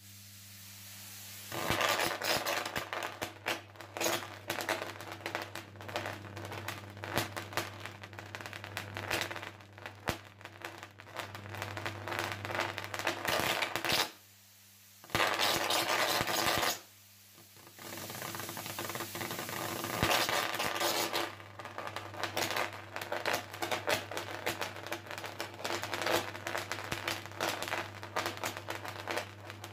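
High-voltage electric arc burning between two electrodes, crackling and sputtering in dense irregular snaps over a steady low hum. The arc strikes about a second and a half in, and the crackle cuts out twice briefly around the middle before resuming.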